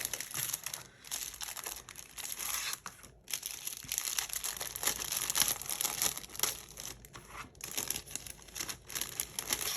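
Plastic and paper packaging crinkling and rustling in the hands as a parcel is unpacked, with short pauses in the handling.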